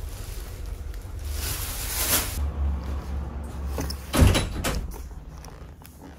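Lift car with a steady low hum and the rush of its sliding doors, which stops sharply about two and a half seconds in. A loud knock just after four seconds, then faint handling of a cardboard phone box.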